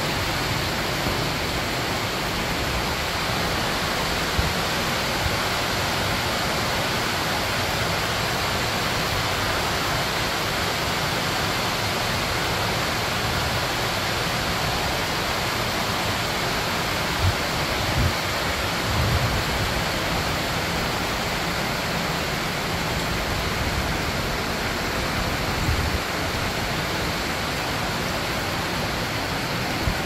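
Steady rushing of a waterfall and the creek running through the tunnel, with a few brief low thumps past the middle.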